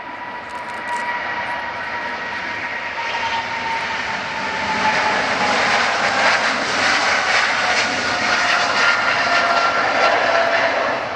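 Boeing 777-300ER's twin GE90-115B turbofans at takeoff thrust as the airliner rolls, lifts off and climbs past: loud jet noise that builds over the first few seconds and then holds, with a whining tone that slowly drops in pitch as it goes by.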